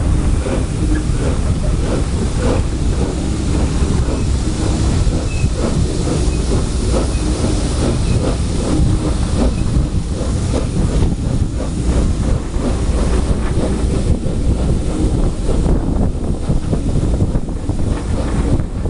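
Southern Railway Schools class 4-4-0 steam locomotive No. 30926 Repton working a train, heard from a carriage window: the beats of its three-cylinder exhaust come through over the steady rumble and clatter of the carriages on the rails.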